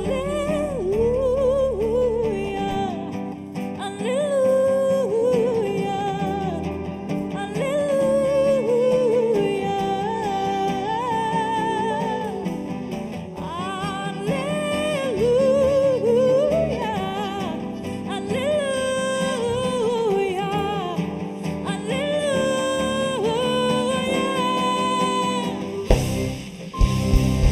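Live gospel band music with a woman singing long, gliding, wavering notes over sustained band chords. The music dips briefly near the end.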